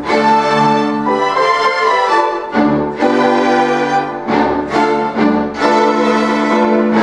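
Student string orchestra playing, violins to the fore, in long bowed notes sounded together, the chord changing about every second.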